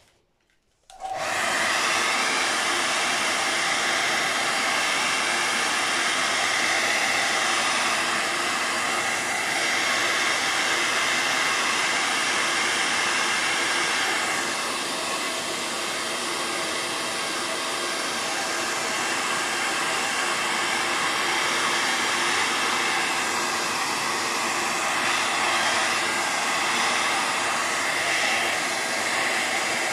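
Hair dryer switched on about a second in and blowing steadily, drying a freshly painted layer; its level dips slightly about halfway through.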